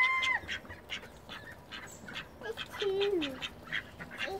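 Close, short clicks of a grey squirrel cracking and chewing seeds, with animal calls over them: one held call at the start and a falling call about two and a half seconds in.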